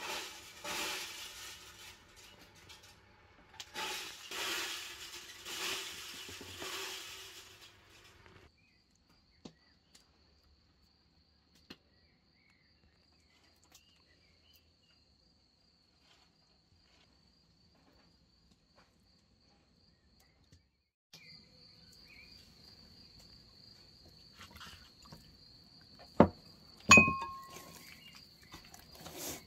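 Crickets chirping in a steady, fast pulsing trill, faint at first and plainer in the second half. Two sharp clinks of kitchenware about three-quarters of the way in. The opening seconds hold three bursts of hissing noise.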